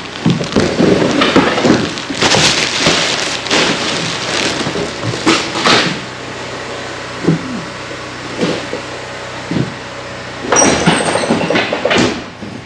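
Irregular clattering, rustling and knocking of junk being handled and moved, dense for the first several seconds, quieter in the middle, and busy again near the end.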